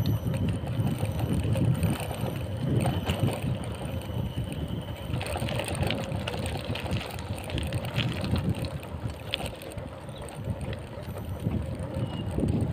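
Wind buffeting the microphone of a bicycle ride, with the tyres rolling over a gravel-and-dirt track and small crackles and rattles from the bike over the bumps, more of them from about halfway through.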